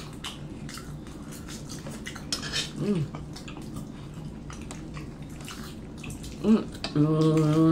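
Eating at the table: forks clicking against a tray and plate as fried chicken is picked at and chewed. A short hummed "mm" comes about three seconds in, and a longer steady "mmm" of enjoyment near the end.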